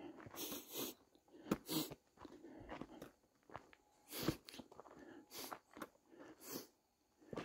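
Footsteps crunching on a gravelly dirt trail, with a couple of sharper knocks where a foot strikes rock.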